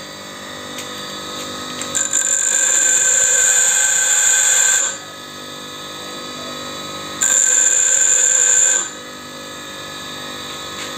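REX bench grinder running with a steady motor hum, while a single-point lathe tool bit is pressed against the spinning wheel twice: a high-pitched grind for about three seconds, then again for about a second and a half. The passes are grinding a chip-breaker groove into the top face of the tool.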